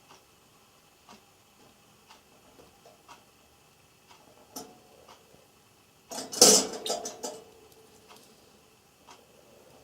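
Java sparrow nibbling pea sprouts: soft, irregular clicks of its beak. About six seconds in comes a louder metallic clatter of the wire cage, lasting a little over a second.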